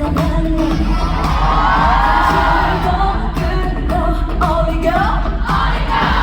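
A female singer singing a pop song live over a loud backing track through the venue's PA, with heavy bass under a gliding sung melody.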